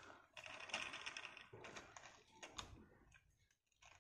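Faint clicking and rustling of a plastic toy road roller being handled, small light clicks in quick succession that stop about three seconds in.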